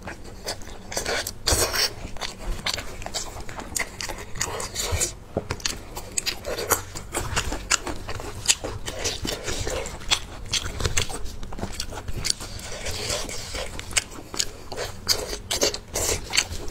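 Chewing and wet mouth smacking on cooked sheep-head meat, with sticky tearing as gloved hands pull meat off the skull. Irregular sharp clicks and crackles come several times a second.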